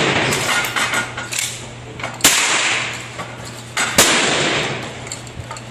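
Two gunshots about a second and three-quarters apart, each followed by a long rolling echo, with the echo of an earlier shot dying away at the start and a few fainter cracks in between.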